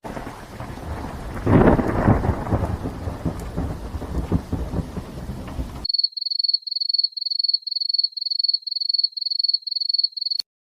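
Thunder with rain: a loud crack about a second and a half in, rolling off into rain noise, which cuts off near the middle. Then a high electronic beep repeating about three times a second until it stops abruptly.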